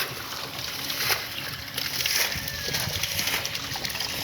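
Water splashing and sloshing in irregular strokes, with faint voices underneath.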